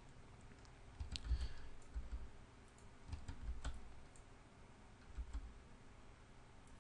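Faint, scattered clicks and taps from a computer keyboard and mouse in use, a handful spread over the few seconds, some with a soft low thump.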